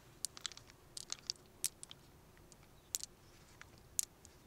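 Irregular sharp clicks and light crunches, about a dozen in a few seconds, from a freshwater mussel shell being handled and pried open.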